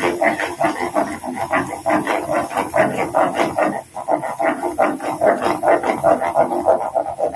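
Wooden spoon stirring and scraping in a coated wok while melted butter bubbles and sizzles and powdered milk is mixed in: a dense run of rapid crackles and pops.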